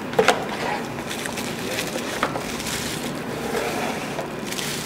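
Cardboard packaging being handled and opened, with a couple of sharp knocks just after the start and a light click about two seconds in, then rustling as a clipper wrapped in plastic bubble wrap is lifted out of its box.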